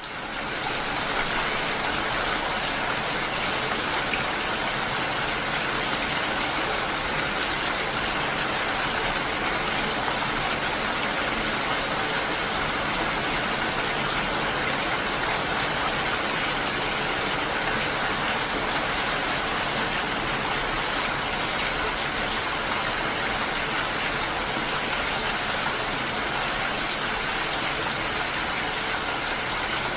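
Steady heavy rain, a dense even hiss of falling drops. It swells in during the first second and then holds at a constant level.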